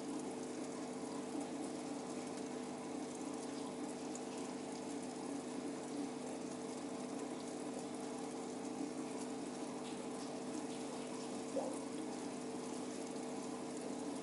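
Aquarium water pump running with a steady hum under the trickle and splash of water, and one short knock late on.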